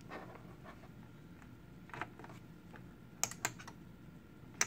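Button presses on a Rigol function generator's keypad while a pulse-width value is entered: a few separate clicks, with a pair about three seconds in and the loudest near the end.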